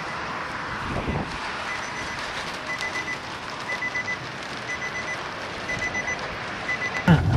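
A car's seatbelt warning chime beeping about once a second over steady vehicle and wind noise, with a sudden thump near the end.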